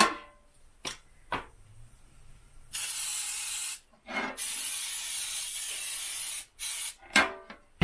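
Aerosol can of cooking spray hissing in three bursts, about a second, then about two seconds, then a brief puff, greasing a metal baking pan. A couple of light knocks come before the spraying.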